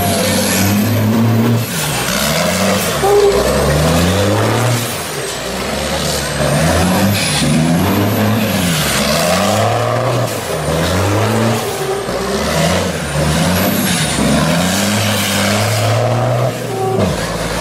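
A show truck's engine revving up and down over and over, roughly once or twice a second, as it is driven hard around the track. A faint high whistle rises and falls along with the revs.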